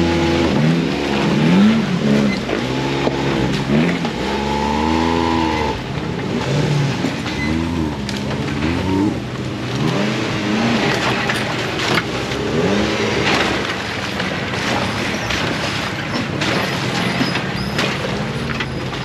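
Off-road vehicle engines revving up and down again and again, each rev lasting about a second, over a steady low engine rumble. Scattered knocks and clatter come in the second half.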